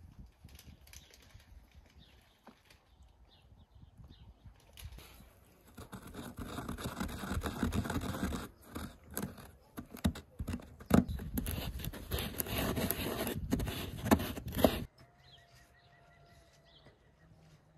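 Wooden pestle grinding in a coconut-shell mortar: a dense scraping with sharp knocks as the pestle strikes, which stops abruptly about 15 seconds in.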